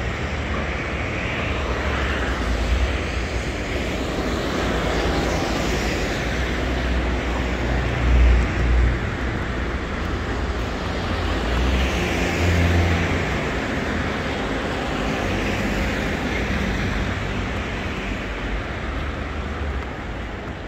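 Steady city street traffic noise from passing vehicles' engines and tyres, with two louder low rumbles as heavier vehicles pass, about 8 and 12 seconds in.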